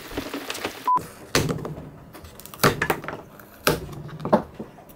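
Kitchen knife knocking against coconut shell and a wooden cutting board while the meat is pried out: about four sharp knocks roughly a second apart, with lighter ticks between. A short beep sounds about a second in.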